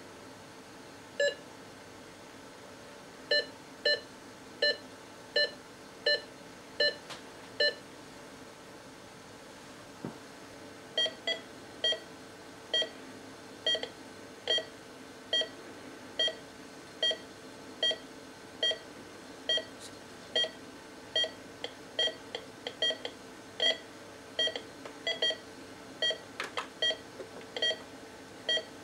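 Philips M3 patient monitor's SpO2 pulse tone: a short beep with each pulse beat picked up by the finger sensor, a little over one a second, its pitch set to follow the oxygen saturation (tone modulation on). The beeps drop out for a few seconds about eight seconds in, then resume, unevenly spaced for a while later on.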